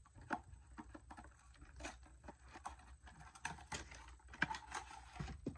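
A small cardboard tripod box with a hang tab being pried open and handled by hand: scattered clicks, taps and rustles of card and packaging at an uneven pace.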